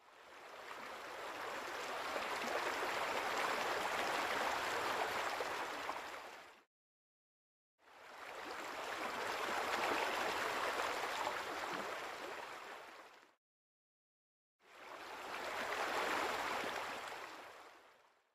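Steady rushing noise like running water, fading in and out three times with about a second of dead silence between each pass.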